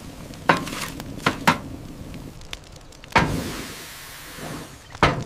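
Wood knocking against a furnace firebox as sticks are shoved into the fire: three sharp knocks. About three seconds in comes a sudden whoosh that fades away over about a second and a half, followed by two short clicks near the end.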